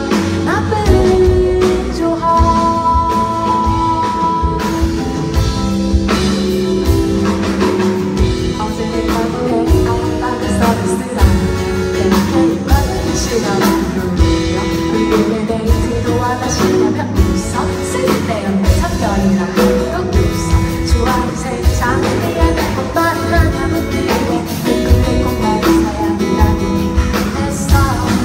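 Live band music: a female vocalist singing over electric guitar, bass and a drum kit keeping a steady beat.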